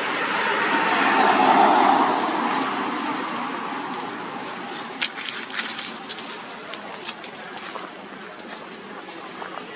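A broad rushing noise that swells over the first two seconds and then fades, with scattered small clicks and crackles of dry leaves and grit as monkeys scuffle on the ground.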